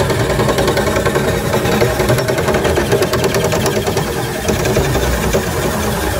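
Gasoline boat motor running steadily at low speed.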